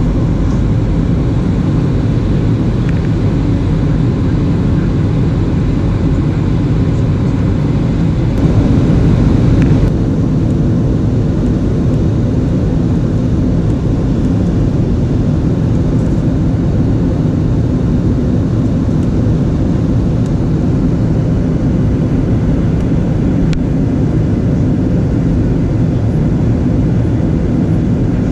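Steady cabin noise of a Boeing 737-800 in flight, heard inside the cabin at a window seat: the low rumble of its CFM56 engines mixed with airflow over the fuselage. The noise gets briefly a little louder about eight seconds in.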